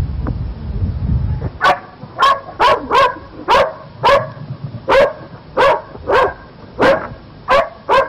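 A dog barking repeatedly, about a dozen barks at roughly two a second, starting about a second and a half in. Before the barking, a low rumble of wind on the microphone.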